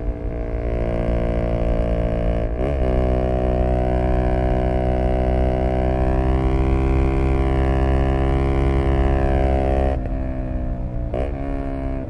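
Zontes U125 scooter's single-cylinder engine running at steady high revs through an aftermarket Black Widow exhaust, a droning, even note. A quick dip and recovery in pitch comes a few seconds in, and near the end the engine eases off a little with another brief wobble in pitch.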